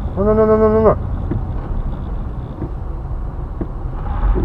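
Steady low rumble of a car's engine and tyres on a winter road, heard from inside the cabin, with one steady, held pitched tone lasting just under a second near the start.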